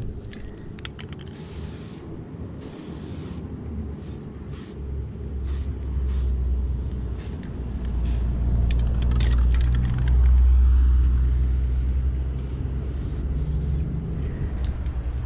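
Aerosol spray paint can hissing in short bursts, over the low rumble of a motor vehicle's engine that swells to its loudest about two-thirds of the way through.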